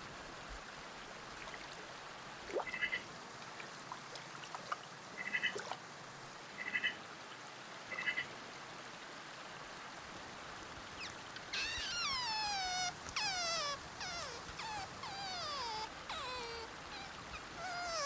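Otter calls: four short, high chirps spread over the first half, then, from about eleven seconds in, a rapid series of squealing whistles, each sliding steeply down in pitch.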